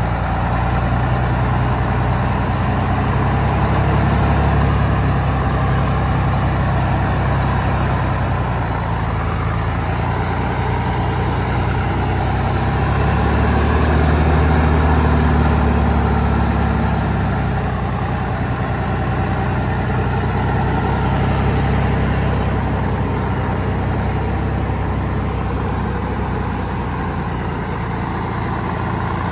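Heavy truck engine running steadily, swelling louder and higher about halfway through, then easing back.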